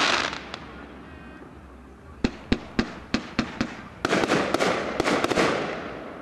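Aerial fireworks bursting: a noisy crackling burst fades out, then comes a quick run of about seven sharp bangs. Near the end of that run a second loud crackling burst swells and fades.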